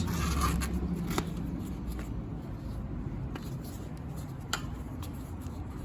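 Plastic tire lever run along a road bike rim, sliding the bead of a skinny folding tire off: soft scraping and rubbing with a few sharp clicks.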